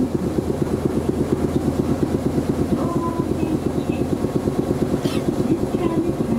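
Air compressor of a stationary Iyo Railway Moha 50 tram chugging with a rapid, even beat over a low electrical hum, refilling the brake air while the tram waits.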